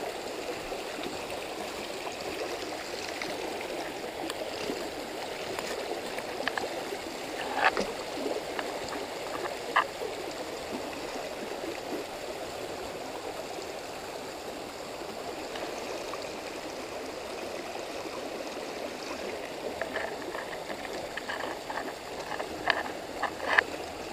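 Shallow rocky mountain creek flowing and babbling steadily over stones, with a few short clicks about eight and ten seconds in and again near the end.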